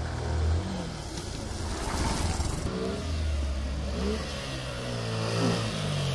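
A motorcycle engine revving as the bike approaches, its pitch rising and falling several times with the throttle.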